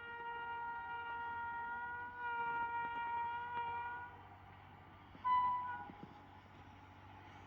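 Indian Railways train horn: one long, steady blast of about four seconds that swells partway through, then a short, louder blast about five seconds in.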